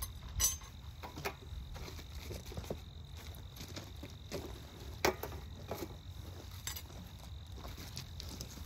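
Scattered clicks and knocks of wooden beehive frames and boxes being handled during a hive inspection, the sharpest about half a second and five seconds in, over a faint steady high tone.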